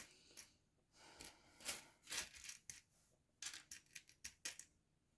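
Faint clicking and rattling of small plastic building bricks as hands search through loose pieces: scattered sharp clicks, with a quick run of them past the middle.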